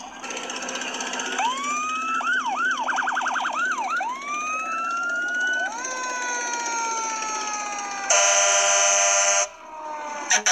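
Fire engine's electronic siren wailing up and down, switching briefly to a fast yelp, then winding down in slow falling tones. Then comes a loud, steady horn blast of about a second and a half, and a short sharp sound just before the end.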